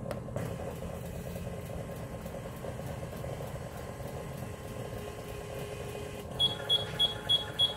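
Electronic device beeping rapidly, short high beeps about three a second, starting about six and a half seconds in over a steady low hum. It comes from a malfunctioning unit that has just been set to its preset.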